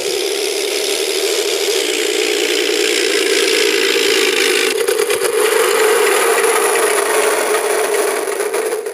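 Radio-controlled model airplane fitted with a Mr RC Sound unit playing a realistic engine sound: a loud, steady engine drone with a rattle and a hiss over it, rising slightly in pitch about halfway through.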